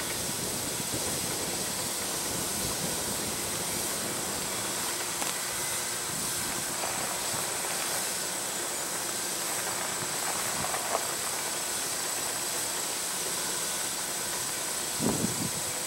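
Nickel Plate Road 765, a 2-8-4 Berkshire steam locomotive, working toward the camera from a distance: a steady hiss of exhaust and running, with a couple of low thumps near the end.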